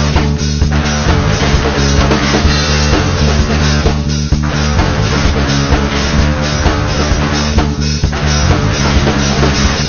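Loud rock music with drums and guitar.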